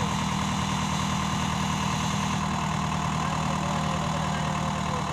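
A diesel tractor engine running steadily at a constant speed while its hydraulic tipping trolley is raised to unload soil.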